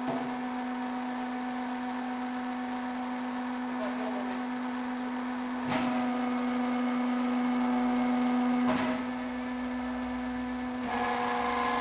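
Hydraulic power unit of a vertical stave-wood splitter humming steadily. About six seconds in, a clunk comes and the machine's note grows louder and fuller under load as the ram drives the wedge down. About three seconds later another clunk comes and the note settles back to the steady hum.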